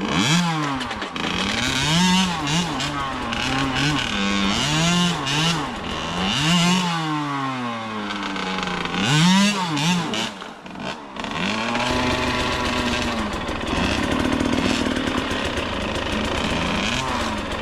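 Husqvarna TC65 two-stroke dirt bike engine revving up and down over and over, its pitch rising and falling in quick swells, then running more evenly over the last few seconds as the young rider feathers the throttle and clutch.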